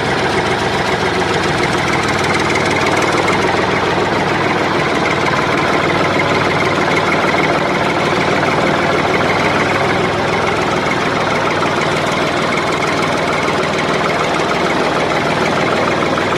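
An engine running steadily at idle-like speed, loud and unbroken.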